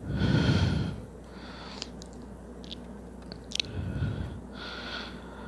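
Quiet handling noise with a few short, light clicks and knocks, from hands and tools at work on a truck's water pump area.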